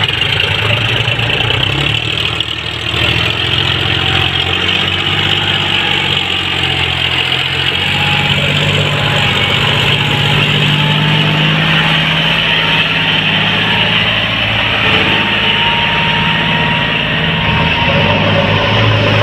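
John Deere 5036 D tractor's diesel engine running hard under load as it pulls a heavily loaded trolley of soil through loose sand. Its note rises about eight seconds in and falls back near the end.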